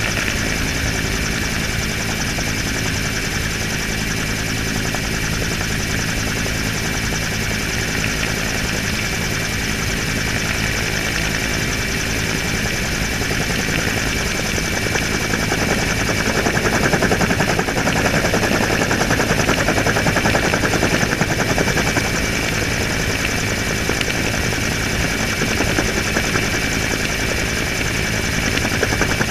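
Helicopter in flight heard from on board: its rotor and turbine running steadily, with rapid rotor chop and a constant high whine, getting somewhat louder about 16 seconds in.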